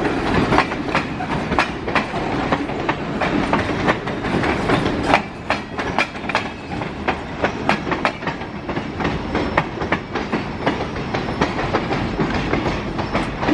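CN freight train cars rolling past, the wheels clicking over rail joints with many sharp clicks in an uneven rhythm over a steady rumble.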